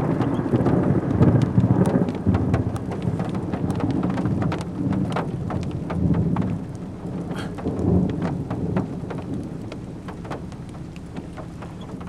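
Thunder from a close lightning strike rumbling in several waves and dying away toward the end, with raindrops ticking on the car.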